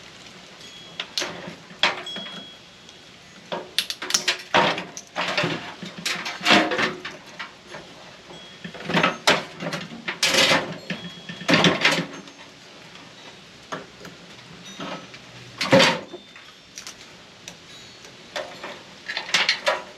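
Tools and sheet-metal parts of a microwave knocking, clinking and scraping during disassembly. Irregular sharp clanks come every second or so, a few ringing briefly like struck metal.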